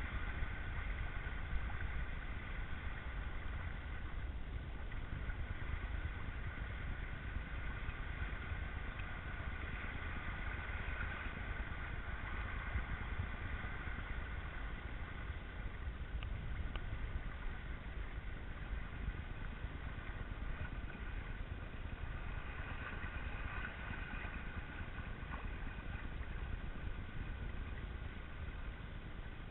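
Steady wind buffeting the microphone and water rushing along the hull of a Cross 18 trimaran under way, with a steady higher hiss over the low rumble.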